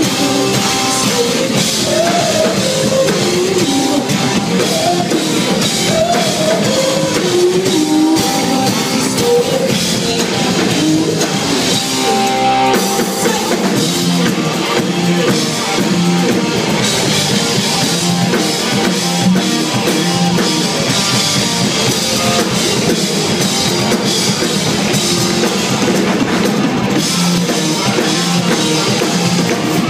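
Live rock band playing loudly: drum kit and electric guitars driving a steady groove, with a lead vocal over it.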